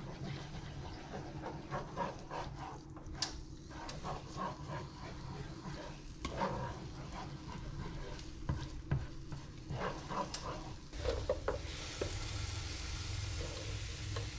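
Spatula stirring and scraping eggs around a frying pan, with irregular scrapes and light knocks against the pan over a faint sizzle. Near the end a steadier hiss takes over.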